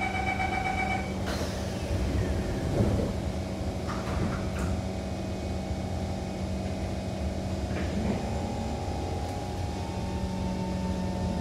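Inside a Kawasaki C151 MRT train: the door-closing warning tones sound for about a second, the sliding doors shut with a knock, and the standing car then hums steadily with a few faint thuds. Right at the end a rising whine begins from the traction motors as the train starts to move off.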